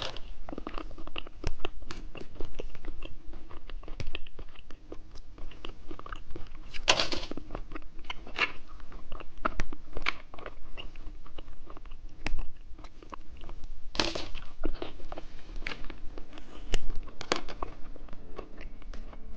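Close-up crunching and chewing of 'popping-skin' grape candies, grape gummies with a crisp sugar shell: irregular sharp crunches as the shells crack, with several louder bites spread through.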